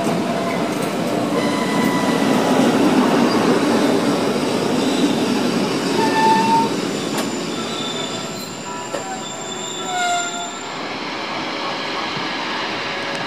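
Rhaetian Railway narrow-gauge passenger coaches rolling slowly through the station, wheels squealing: several high, thin squeal tones come and go over a steady rumble of the wheels on the rails. The sound grows quieter in the second half.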